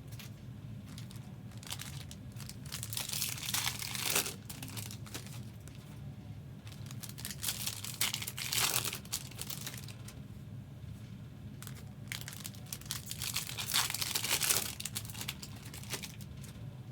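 Foil trading-card pack wrappers being torn open and crinkled, in three main bursts a few seconds apart with small rustles between, over a steady low hum.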